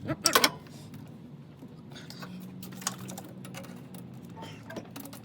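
Sharp clacks of tools and metal parts being handled during car disassembly: a quick loud cluster right at the start, then scattered small clicks and knocks.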